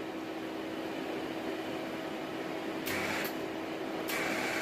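Small MIG welder running with a steady hum. Its wire-feed motor, working again after repair, gives a brief higher whine about three seconds in and runs again from about four seconds on as the torch trigger feeds wire.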